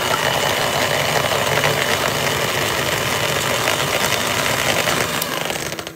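Electric hand mixer running steadily at low speed, its wire beaters whisking raw egg whites in a bowl until they turn frothy. The motor cuts off near the end.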